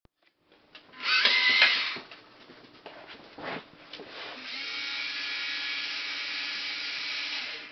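Small electric motors of a Vexplorer remote-controlled robot whirring as its arm is driven, in short spells: the loudest about a second in, lasting under a second, a brief one a couple of seconds later, then a steady whine from about four seconds in until just before the end.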